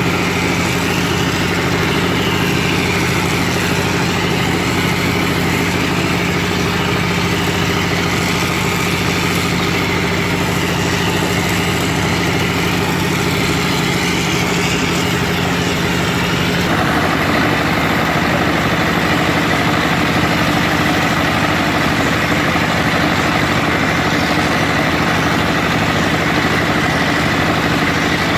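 Wall-plastering machine's motor running steadily; its tone changes abruptly about two-thirds of the way through.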